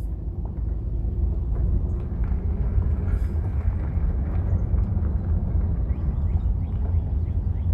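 A car driving slowly, with a steady low rumble of engine and tyres and faint scattered ticks over it.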